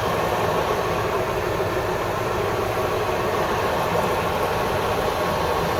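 KAMAZ fuel tanker's diesel engine idling steadily, an even low rumble with no change in speed.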